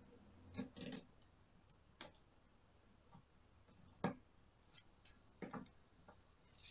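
Irregular light clicks and knocks of plastic pop-it jigsaw tiles and spinner toys being handled, pushed together and set down on a tabletop, the loudest about four seconds in.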